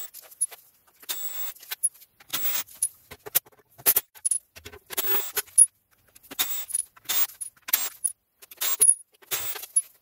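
Ratchet on a long extension clicking in a run of short bursts, about fifteen in all, as the T40 Torx bolts holding the ZF 8HP70 automatic transmission's sump are undone.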